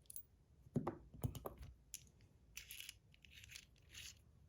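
Faint handling of a metal Pillbug fidget as its screw-on button is twisted out: a couple of soft knocks about a second in, then short scraping rasps repeating every half second or so.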